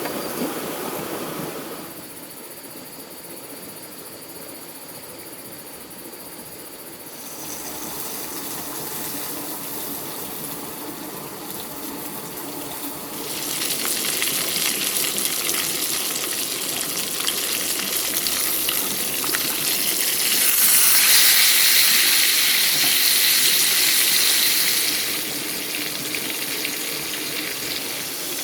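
Water running and splashing, with the level changing in steps. About halfway through the water turns loud and hissing, like a spray or gush, and is loudest for several seconds near the end before easing off.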